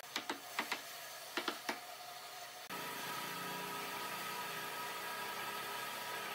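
A wooden mallet knocking a curved backrest rail down onto its wooden dowel spindles: about seven sharp knocks in quick pairs and groups. About two and a half seconds in, the knocks stop abruptly and a steady workshop hum takes over.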